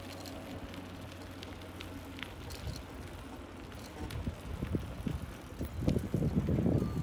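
Wind buffeting the microphone outdoors, with scattered light clicks; from about four seconds in the low rumbling gusts grow stronger and are loudest near the end, as the camera keeps pace with a child's bicycle on asphalt.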